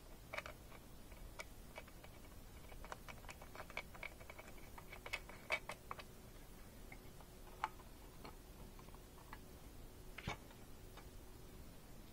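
Faint, irregular plastic clicks and taps as visor clips are worked onto the bars of a football facemask by hand, with a quick run of clicks a few seconds in and one sharper click about ten seconds in.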